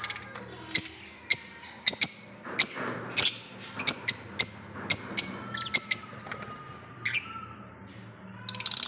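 Parrot giving a run of short, shrill squawks, about two a second. A dense, fast chattering of birds starts near the end.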